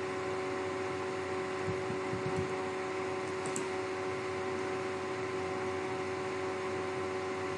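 Steady background room noise: an even hiss with a constant hum of several steady tones, like a fan running, with a few faint soft knocks about two seconds in.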